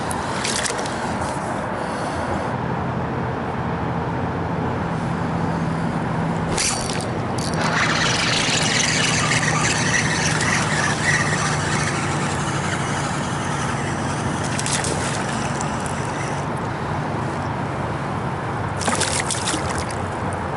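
Water lapping and splashing around a float tube. Near the end there are a few sharp splashes as a hooked bass thrashes at the surface beside the tube.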